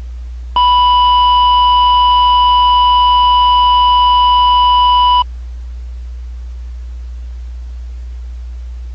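A loud, steady electronic beep tone sounds for about four and a half seconds, starting about half a second in and cutting off suddenly. A constant low hum runs underneath.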